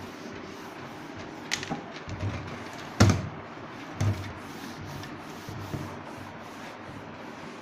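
Cloth duster rubbing over a whiteboard as it is wiped clean, with three knocks on the board, the loudest about three seconds in.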